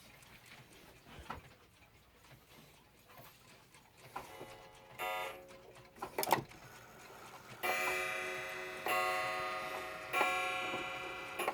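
Mechanical clock ticking faintly with a few small knocks, then from about halfway in a clock strikes several times, about every 1.3 s. Each stroke is a ringing tone that fades slowly.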